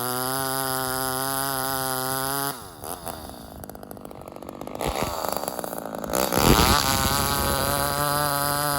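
Ported Homelite XL-76/XL-130 hybrid chainsaw running at a steady speed on a carburettor just richened after a metering-lever adjustment. About two and a half seconds in, its note breaks off and wavers for about four seconds, with a loud surge near the end of that stretch, before it settles back to the steady note.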